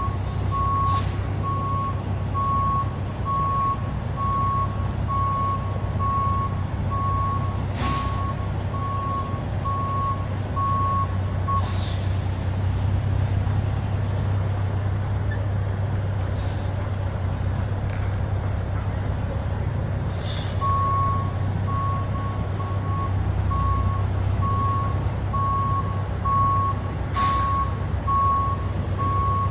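A semi-truck's diesel engine running while it reverses, with its backup alarm beeping steadily; the beeping stops for about nine seconds midway, then starts again. Several short hisses of air are heard from the truck's air brakes.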